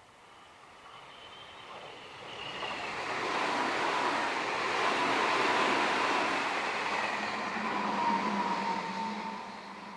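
Meitetsu electric train passing: its rolling noise swells over a few seconds, holds, then fades near the end, with a thin whine running through it.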